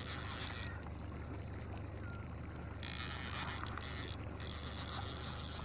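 Fishing reel being cranked in spells of a second or so to bring in a hooked fish, a whirring over a steady low hum from the boat.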